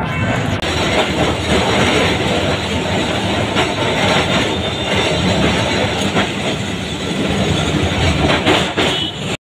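Kolkata electric tram running along its street rails, heard from on board: a steady, loud rumble and rattle of the car with a few clacks from the wheels. The sound breaks off suddenly near the end.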